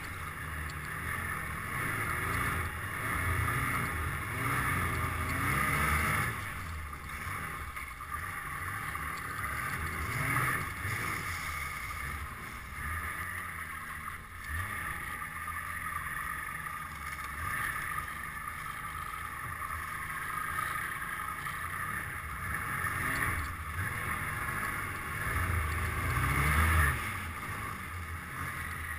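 Snowmobile engine running under load on an uphill climb, its pitch rising and falling with the throttle. It surges about six seconds in and again around ten seconds, and is loudest near the end.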